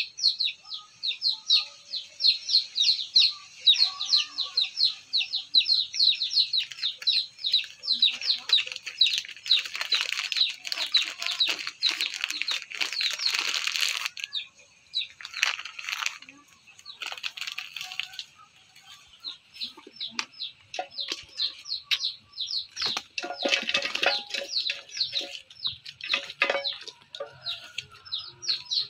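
Two chickens fighting: wings flapping and feathers scuffling in bursts, the longest lasting several seconds in the middle. Under it runs a steady rapid high cheeping, several short calls a second.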